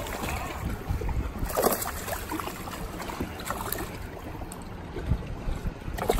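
Wind buffeting the microphone over water sloshing beside a boat's hull, with a few short splashes as a hooked bass thrashes at the surface.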